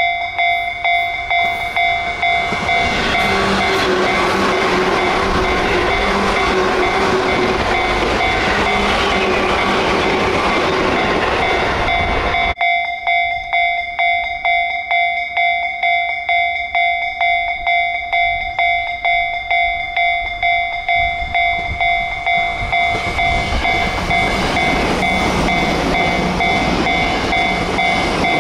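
A railway level-crossing bell ringing about twice a second as electric commuter trains pass: a Tobu 10000 series, then, after a cut about halfway, a Tokyo Metro 10000 series. Each train builds into a steady rush of wheels on rail.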